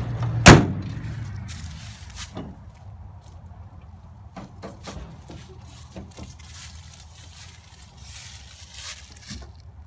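The cab door of a 1967 International Lodestar cab-over truck slammed shut with one loud bang. A low hum fades out in the first couple of seconds, and after that come faint scattered knocks and rustles of handling.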